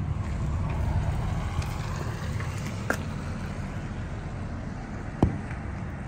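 Street ambience: a steady low rumble of traffic and wind on the microphone, swelling a little in the first two seconds. A faint click comes near three seconds in and a sharper knock about five seconds in.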